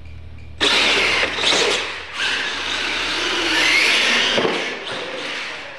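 Two Losi LMT radio-controlled monster trucks launching off the start line about half a second in, their electric motors whining and their tyres rushing over the concrete floor, loud for several seconds and easing off near the end.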